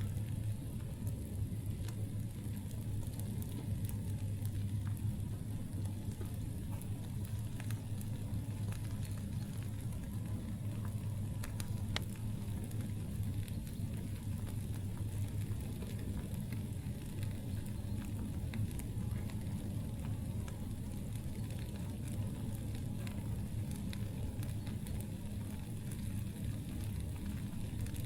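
Campfire burning: scattered sharp crackles and pops of burning wood over a steady low rumble, with one louder pop about twelve seconds in.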